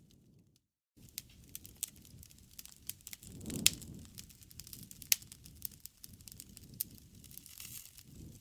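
Bonfire crackling: wood pops and snaps in irregular sharp clicks over the low rush of the flames, with one loud pop a little past the middle. The sound drops out completely for a moment just under a second in.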